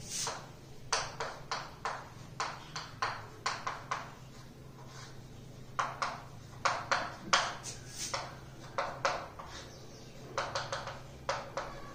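Chalk writing on a chalkboard: a run of short, irregular taps and scratches as the words are written, with a pause of about a second and a half near the middle. A faint steady low hum runs underneath.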